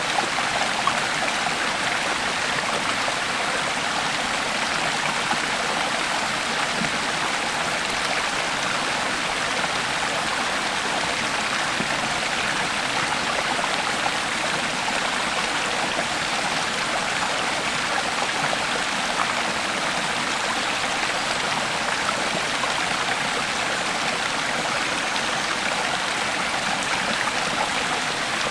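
Creek water flowing steadily over rocks, a constant rushing and babbling.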